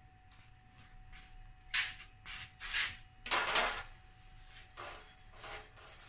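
Several short scuffs and rubs, the loudest about three and a half seconds in, as someone in sandals steps up and lays a white tube across a refrigerator evaporator plate on the floor.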